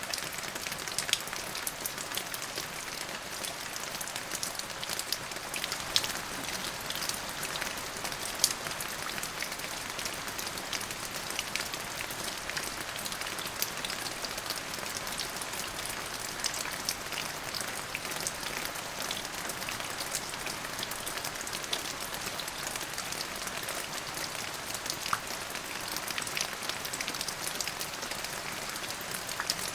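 Steady rain falling, a continuous hiss with many close individual drops ticking on a hard surface and a few louder drips.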